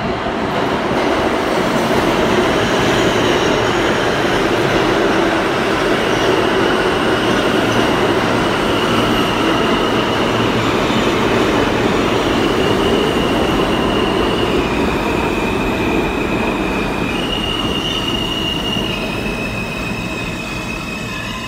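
New York City subway train pulling into the station on the next track: a loud, steady rumble of wheels on rail that swells in the first couple of seconds and eases toward the end as it slows. From about the middle on, a high tone comes and goes, shifting in pitch each time.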